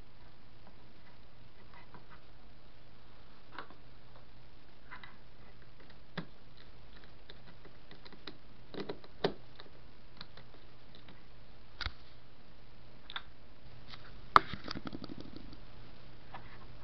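Scattered faint clicks and ticks at irregular intervals over a steady low hum. About 14 seconds in, a sharp knock and a second of rubbing as the camera is handled and moved.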